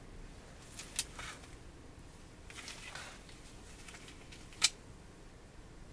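Gloved hands handling a Daiwa Hyper Tanacom 500F electric fishing reel: soft rustling, with a sharp click about a second in and a louder one near the end.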